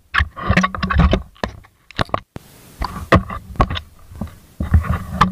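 Irregular sharp knocks and scraping against the hull of a small wooden outrigger fishing boat, with water splashing alongside.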